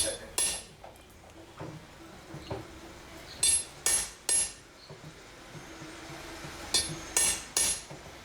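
Hammer striking steel on an anvil in forging, each blow ringing metallically. The blows come in short groups, two, then three, then three, with the strikes about half a second apart and pauses between groups.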